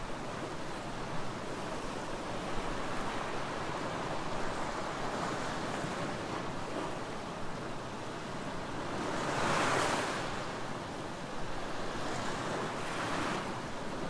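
Small ocean waves lapping on a sandy beach and breaking over low black lava rocks just offshore: a steady wash of surf that swells with each wave, loudest about nine to ten seconds in, with another surge shortly before the end.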